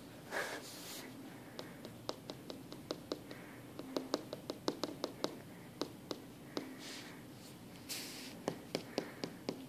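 Faint, irregular light tapping: fingertips or nails clicking on a hard surface, a few taps a second, with a pause and a short rustle before a few more taps near the end.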